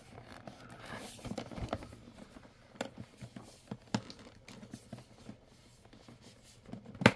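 Hands handling a cardboard box: scattered light taps, rubs and clicks, with one sharp knock near the end.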